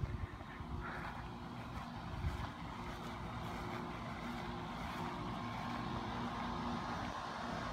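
Steady low mechanical hum of an engine or motor running, with an even pitch and no change in level.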